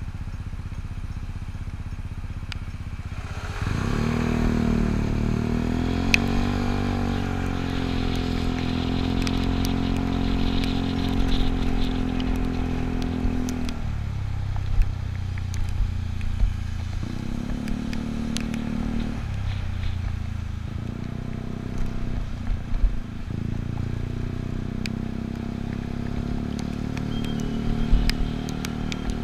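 Yamaha Cygnus scooter's single-cylinder engine idling at a light, then revving up about three and a half seconds in as it pulls away. It runs at a steady speed, with the throttle eased off and opened again several times near the middle and later on.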